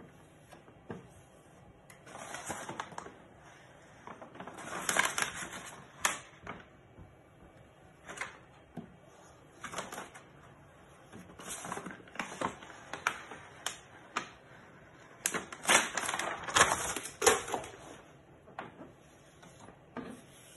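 Paper backing crinkling and crackling as it is peeled from the Wham Bam flex system's self-adhesive magnetic base sheet, with hands rubbing and pressing the sheet down onto the printer bed. The noise comes in irregular bursts of rustling and sharp crackles, loudest about five seconds in and again after fifteen seconds.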